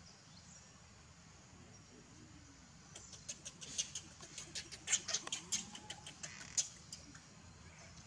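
A baby macaque giving a rapid, irregular run of short, sharp high-pitched squeaks, starting about three seconds in and lasting about four seconds.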